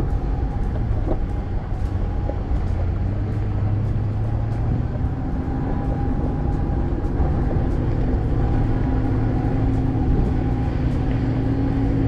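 A 4x4's engine and tyres driving slowly on a gravel dirt road: a steady low drone with a constant hum.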